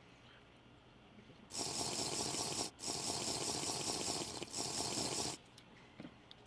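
Breathy rushing noise of a man breathing hard through his nose into a close microphone while gulping beer: three rushes of a second or more each, starting and stopping sharply.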